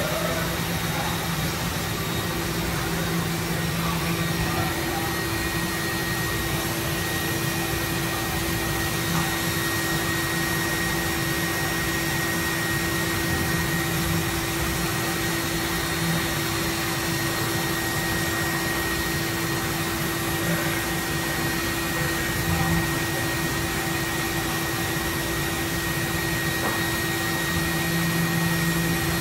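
Doosan NHP5000 horizontal machining center running, a steady whir with a constant high-pitched whine over a lower hum.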